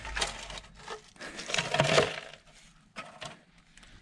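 Rummaging among debris: irregular clinks, knocks and crunches as objects are picked up and moved, loudest about a second and a half to two seconds in.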